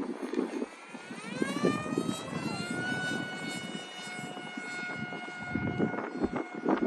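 Small electric RC plane's motor and propeller whining up in pitch as the throttle opens, then holding a steady high whine. Wind gusts buffet the microphone throughout.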